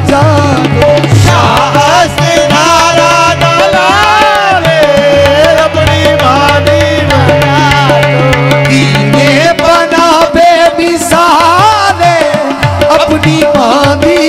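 Qawwali-style devotional music: tabla drumming and harmonium under a singer's voice sliding between long held notes without clear words.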